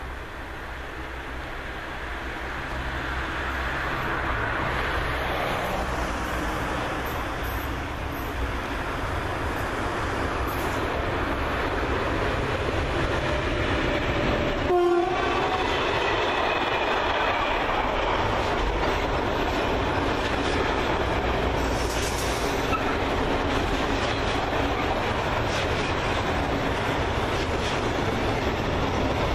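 Intermodal freight train passing close by: it grows louder over the first few seconds as the locomotive approaches, then a long string of container and trailer wagons rolls past steadily on the rails. A short horn-like tone sounds about halfway through.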